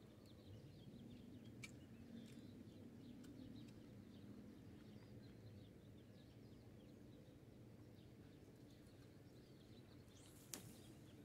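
Near silence: faint outdoor ambience with faint high chirps scattered through, a small click early and one sharp click about ten and a half seconds in.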